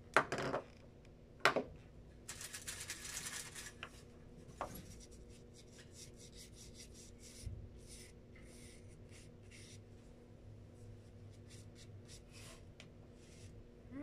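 Two sharp clicks as felt-tip markers are handled, then a burst of scratchy rubbing, then faint, scattered soft scratching strokes of a paintbrush painting over marker colour on paper.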